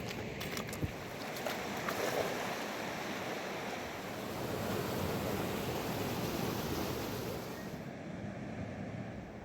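Fast-flowing river water rushing steadily, with a few faint clicks in the first couple of seconds.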